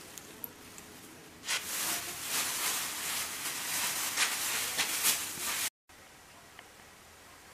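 Scratchy rubbing of a small piece of paper or sandpaper worked by hand against a stained wooden ceiling beam, in uneven strokes starting about a second and a half in and cutting off suddenly near the end, with a few small clicks before it.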